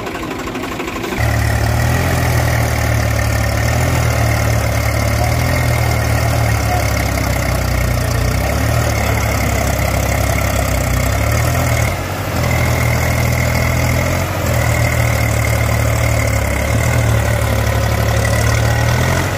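Tractor diesel engines running hard as a Swaraj 744 FE tows a Mahindra 265 DI stuck in slippery mud by a rope. The engine sound gets louder about a second in and holds steady, with two brief dips past the middle.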